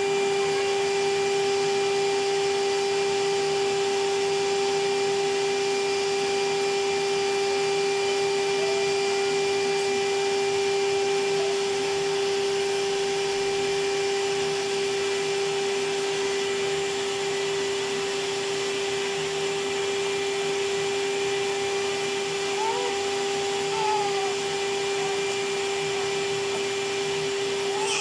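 Electric vacuum cleaner running steadily: a constant motor hum with a fixed whine over the rush of air.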